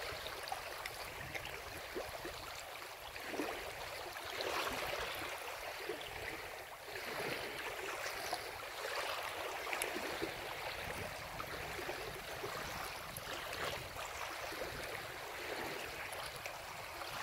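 Sea waves washing in over the shore: a steady rushing that swells and eases every few seconds.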